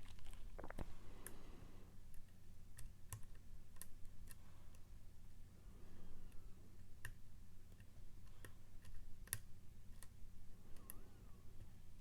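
Faint, irregular small metallic clicks and taps of a lock pick tapping the pins inside a Mul-T-Lock MT5+ dimple lock under tension. The lock is still locked in a false set.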